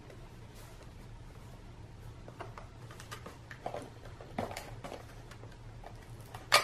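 Faint handling noises from a small cardboard sunglasses box being worked open by hand: a few soft scrapes and taps, then a sharp click near the end, over a steady low hum.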